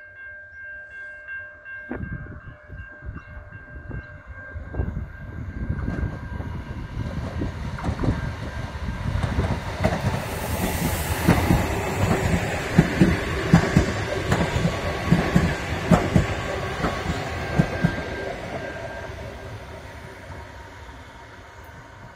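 A train approaching and passing, growing louder to about the middle, with rapid clicking of wheels over the rail joints as it goes by, then fading away.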